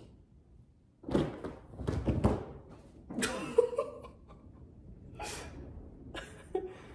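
A few dull thumps and knocks, the loudest about one and two seconds in, followed by several shorter, quieter sounds.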